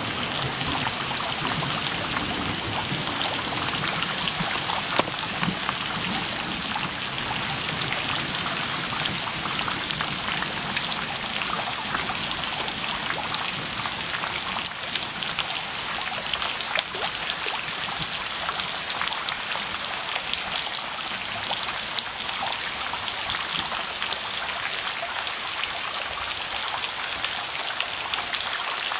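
Steady rain falling, with many individual drops heard landing close by throughout.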